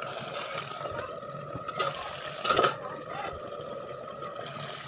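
Chicken curry simmering in a lidded wok on a gas burner: a steady bubbling hiss under a faint steady high tone, with two short knocks around two seconds in, the second the louder.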